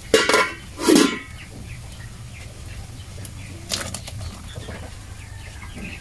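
Metal cooking-pot lid clanking twice in quick succession in the first second, the first hit ringing briefly, then a softer knock nearly four seconds in.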